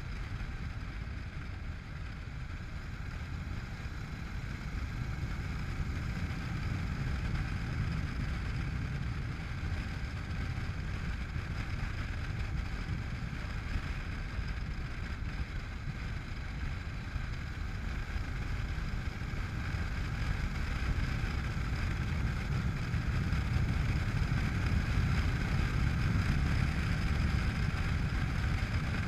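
Honda NC700X motorcycle's parallel-twin engine running steadily while riding, mixed with wind rush and road noise, growing gradually louder over the last third.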